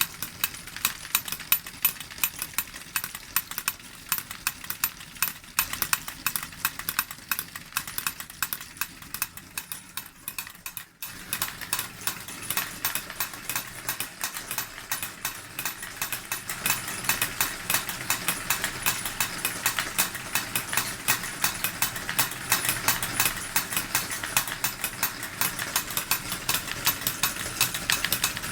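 Two miniature forging hammers driven by a D21 model steam engine, clattering in a rapid, continuous run of metal taps. The clatter breaks off briefly about eleven seconds in and grows a little louder and denser from about sixteen seconds on.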